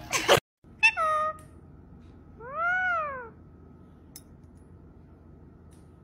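A short loud harsh burst right at the start, then two cat-like meows: a brief one falling in pitch about a second in, and a longer one rising then falling in pitch near the middle.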